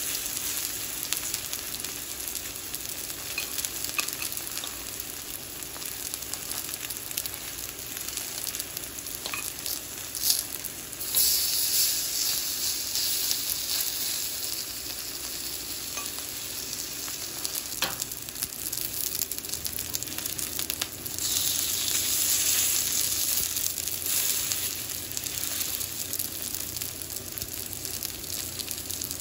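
Food sizzling and frying in a Lodge cast iron pan, a steady hiss that swells louder twice, for several seconds from about eleven seconds in and again for a few seconds near the twenty-one-second mark, with a few light taps.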